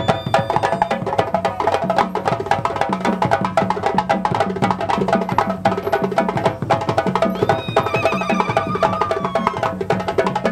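West African drum ensemble: several djembes and other hand drums played together in a fast, dense rhythm, with a repeating deeper drum tone underneath.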